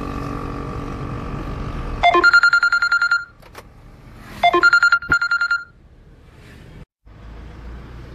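Two bursts of rapid electronic beeping on one steady pitch, each opening with a quick upward sweep, over steady car-cabin noise. The sound drops out briefly near the end.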